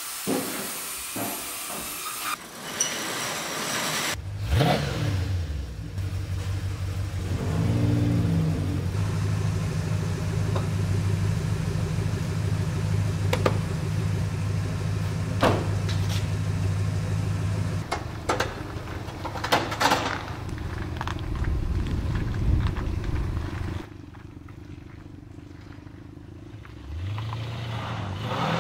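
Peugeot RCZ's engine starting about four seconds in, revving briefly, then running steadily as the car is driven slowly. Near the end it drops quieter for a few seconds, then picks up again.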